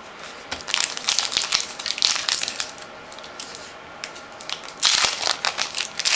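A trading-card pack's plastic wrapper crinkling and crackling as it is handled and opened, in irregular bursts, with a short lull around the middle and louder crinkling near the end.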